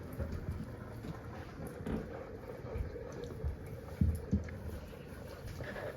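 Wood fire in a home fireplace crackling and popping steadily, with a couple of dull thumps about four seconds in.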